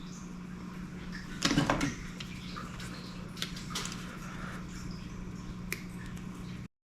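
Light clicks and taps of small parts and tools being handled at a soldering bench, loudest about a second and a half in, over a steady low hum. The sound cuts off just before the end.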